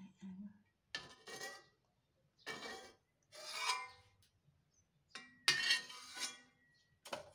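Metal spatula scraping and clinking against a wok with oil in it, in about four separate strokes.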